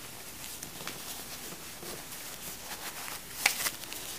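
Disposable diapers rustling and crinkling as hands stack and press them together, with a sharper crackle about three and a half seconds in.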